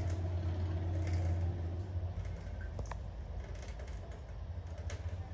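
A towel being rubbed over a small wet animal, with soft rustling and a few light clicks over a steady low hum that is louder in the first two seconds.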